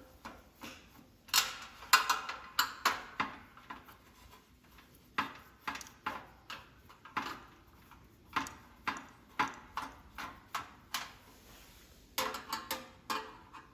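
Irregular metallic clicks and clinks as screws are worked out of a metal heater's sheet-metal casing by hand, with a quick run of clinks near the end.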